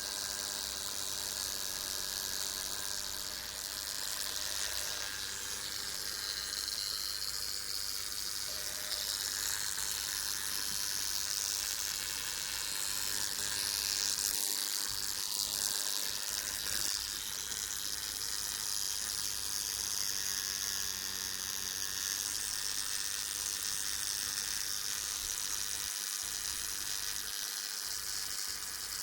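Brown marmorated stink bug buzzing its wings in a steady, continuous drone.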